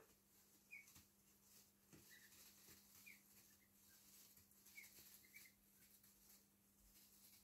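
Faint, soft peeps from 1.5-week-old Welsh Harlequin ducklings, about six short chirps spread through, over light rustling as they preen and shift in wood-shaving bedding.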